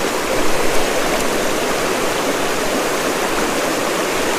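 Small, shallow mountain river running steadily: a constant rush of water with no breaks.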